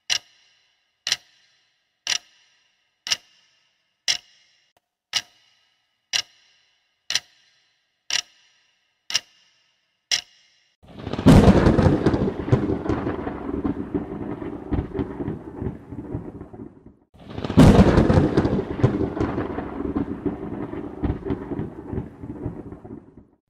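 A clock ticking about once a second for some ten seconds, then two claps of thunder, each a sudden crash followed by a rumble that dies away over about six seconds.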